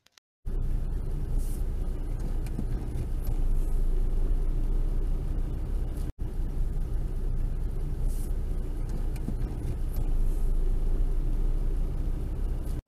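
Steady low rumble of a car's engine and tyres heard from inside the cabin through a dashcam microphone as the car rolls slowly. It starts about half a second in and drops out briefly about six seconds in.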